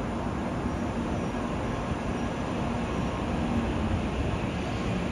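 A 500 series Shinkansen train running on the tracks some way off, a steady rumbling rush with a faint low hum and no sudden changes.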